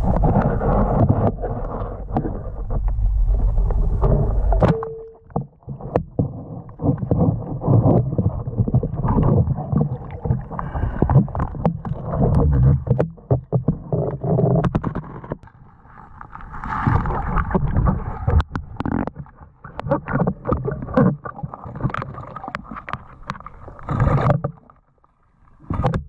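Underwater sound of a spearfishing diver moving among submerged branches and roots: a low rushing noise broken by many sharp knocks and clicks, with a brief steady tone about five seconds in.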